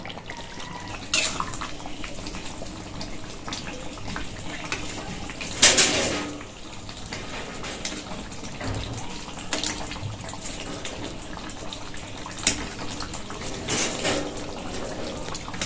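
Metal spoon clinking and scraping against the pot and a steel plate as chicken curry is served: a few scattered sharp clinks, the loudest about six seconds in, over a steady low hiss.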